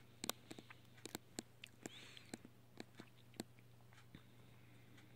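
Pet squirrel's claws scratching and patting at a comforter as she covers up a cached nut: a quick, irregular run of small sharp clicks and scratches that thins out after about three seconds.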